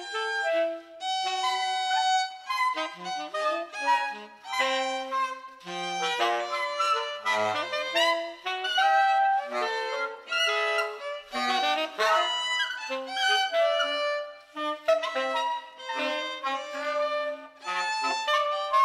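Two tenor saxophones improvising together in free jazz, playing choppy runs of short notes that start and stop and leap between low and high registers.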